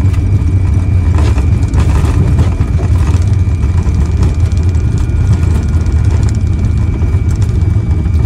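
Cockpit noise of a Fokker 100 airliner rolling on the runway just after landing: a loud, steady low rumble with a thin, steady high whine over it.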